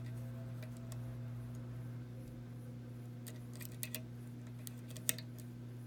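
A few faint metallic clicks and ticks of a lock pick and pry-bar tension wrench working the pins of a Jeffrey Post pin-tumbler challenge lock, most of them a few seconds in. Under them runs a steady low hum.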